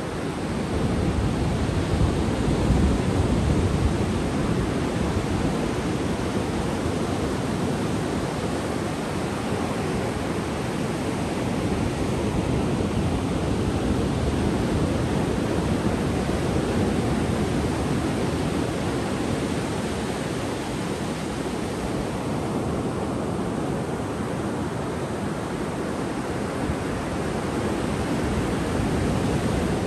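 Ocean surf breaking offshore and washing up a sandy beach: a steady rushing wash of waves, a little louder in the first few seconds.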